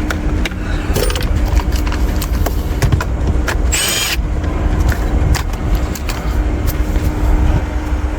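Small clicks, knocks and rattles of plastic dashboard trim and screws being handled during a dash teardown on a 2017 Cadillac XTS, with a brief scraping hiss about halfway through, over a steady low hum and rumble.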